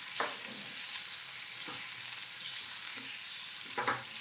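Butter sizzling as it melts into hot caramel in a stainless steel frying pan, stirred with a spoon that scrapes the pan a few times. The butter is being added to stop the dry caramel cooking.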